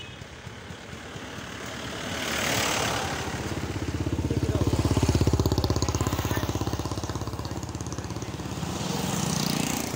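Small motor scooter engine running, revved up and let back down several times, loudest about five seconds in.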